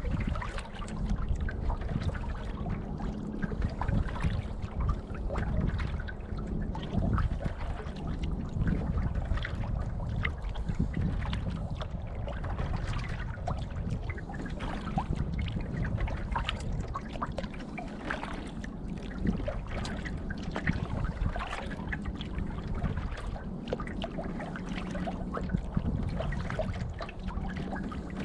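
Lake water lapping and trickling against the hull of a moving canoe, with many small splashes and drips.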